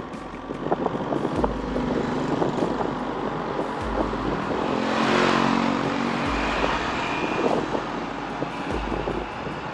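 Road traffic: a vehicle passes close by, its engine and tyre noise swelling to a peak about halfway through and then fading, over a general traffic hum. A short low pulse recurs about every two and a half seconds.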